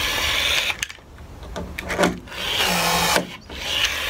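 Milwaukee M12 cordless rivet tool's motor running in short runs of under a second as it pulls aluminium blind rivets, with a sharp click between runs.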